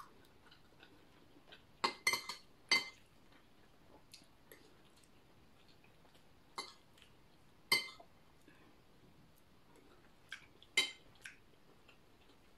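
Metal spoon and fork clinking against plates and bowls while eating: about eight sharp, ringing clinks in three small clusters, with quiet gaps of a few seconds between them.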